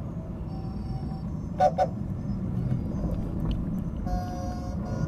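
Steady city traffic rumble with vehicle horns: two short beeps about a second and a half in, and a longer, fainter horn tone near the end.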